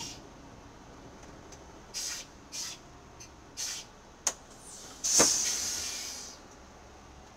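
City bus pneumatic system letting out air: a few short hisses and a click, then a loud burst of compressed air about five seconds in that hisses away over about a second.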